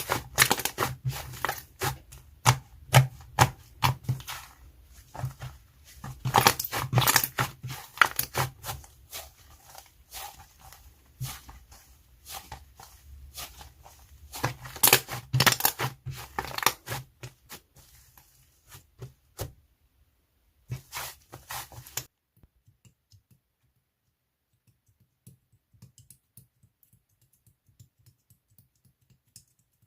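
Fluffy clay-mixed slime being squished and pressed by hand, giving dense, irregular crackling pops and clicks. The crackling stops abruptly about two-thirds of the way in, and only faint scattered small clicks follow.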